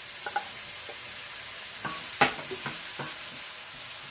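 Chopped tomatoes, onions and garlic sizzling in a stainless steel pan, stirred with a wooden spoon that knocks against the pan several times, the loudest knock about two seconds in.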